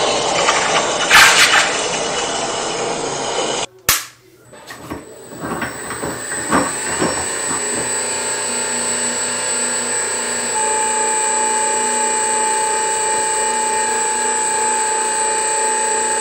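A few seconds of hissing noise, then a few clicks and the electric motor of a Pepetools Ultra Series power rolling mill running with a steady high whine. About two-thirds of the way through a second steady tone joins and it gets slightly louder, as the rollers draw a wire through.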